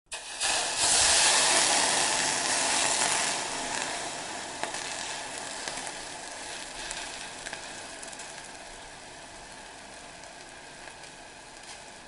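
Cold water hitting a hot plate and flashing to steam: a loud sizzling hiss starts about half a second in, is loudest over the next two seconds or so, then slowly dies away with scattered small crackles.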